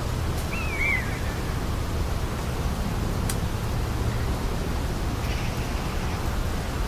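Steady low rumble and hiss of rural outdoor ambience, with a single short, falling bird chirp about a second in and a faint click near the middle.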